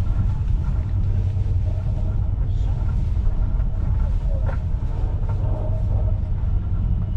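Steady low rumble of a moving passenger train, heard from inside the carriage through the window glass: wheels running on the rails and the carriage body rattling.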